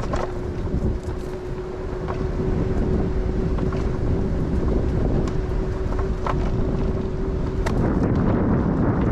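Wind buffeting the microphone on a moving Bird electric scooter, with a steady hum that stops near the end and a few light clicks and rattles.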